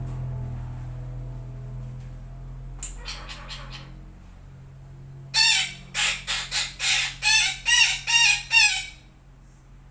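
Sumatran betet parakeet calling: a short faint run of harsh notes, then a loud series of about ten harsh screeching calls, roughly three a second, that stops near the end.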